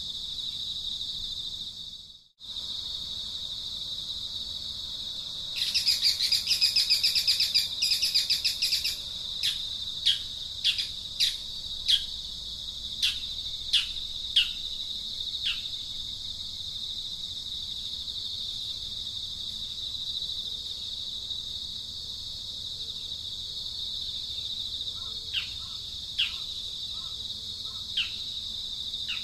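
Steady high-pitched insect trill, with birds calling over it: a burst of rapid buzzy chattering about six to nine seconds in, followed by a run of short, falling chirps, and a few more chirps near the end. The sound drops out briefly about two seconds in.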